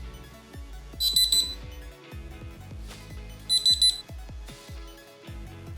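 A DIY Arduino watch's alarm beeping: two quick bursts of several short, high beeps each, about two and a half seconds apart, over background music.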